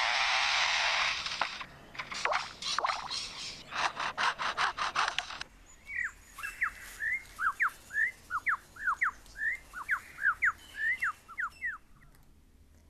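Superb lyrebird mimicking a chainsaw: a steady buzzing run, then broken rasping bursts. About six seconds in it switches to a quick series of sharp, sliding whistled notes, which stop abruptly near the end.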